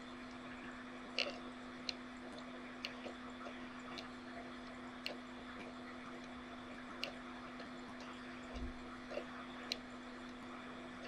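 Faint room tone: a steady low hum under a light hiss, with scattered small sharp clicks at irregular intervals.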